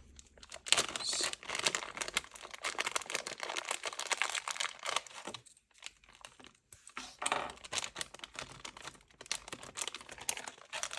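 Packaging crinkling and rustling as accessories are unwrapped and handled, in dense crackles with a short lull a little past the middle.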